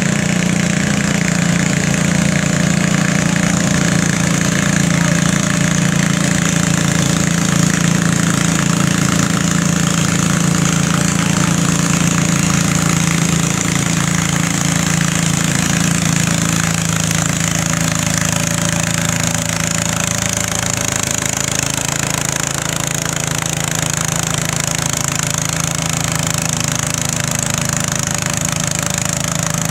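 Small garden tractor engine running hard and steady under load while dragging a weight transfer sled in a pull, its note changing about halfway through as the pull slows.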